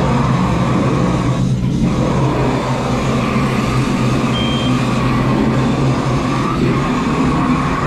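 Large vehicle engine running steadily at a constant pitch, with a brief high beep about halfway through.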